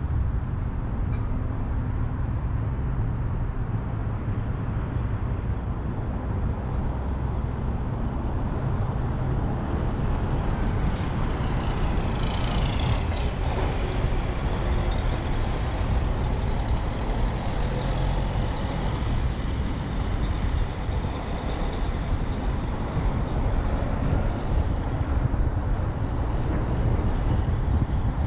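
Steady low rumble of a car driving slowly through a parking lot. Between about 11 and 14 seconds in, a semi tractor-trailer passes close by with a brief rush of sound.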